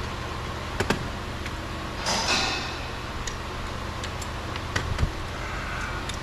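Light clicks and a short scraping rattle from car door trim parts being handled, over a steady low hum: a pair of clicks about a second in, the scrape about two seconds in, and a few more clicks near the end.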